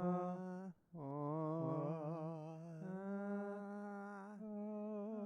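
A single voice humming a slow tune in long held notes with a slight waver, breaking off briefly just before a second in.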